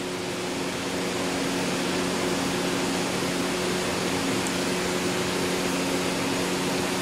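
Steady fan-like room noise: an even hiss over a low steady hum, rising a little in the first second and then holding level.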